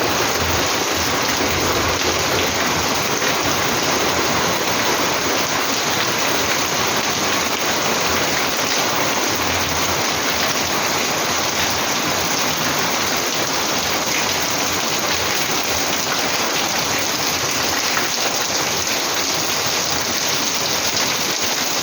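Heavy rain falling steadily, a dense, even downpour that is getting heavier.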